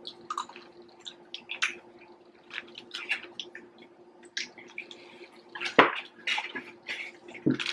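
Plastic forks picking at fried food in styrofoam takeout containers: short, irregular clicks, scrapes and wet ticks, with one sharper knock about six seconds in. A faint steady hum runs underneath.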